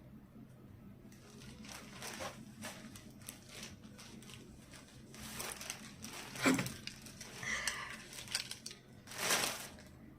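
Packaging rustling and crinkling in several short bursts as items are handled, the loudest about two-thirds of the way through and again near the end.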